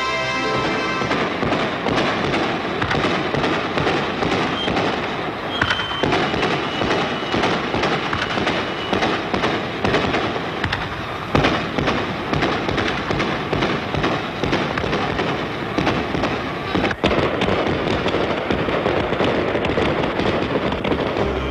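Fireworks crackling and popping in a dense, continuous stream of sharp cracks. Music plays under them for about the first second.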